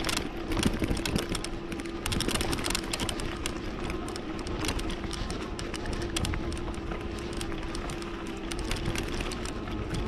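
Gen3 Flex electric bike riding along a sandy dirt trail: a steady motor whine under many quick clicks and rattles from the bike rolling over the rough ground.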